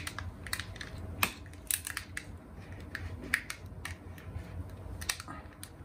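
Light, irregular clicks and taps of small laptop parts being handled as a cover is fitted back over the newly installed NVMe SSD inside the open laptop.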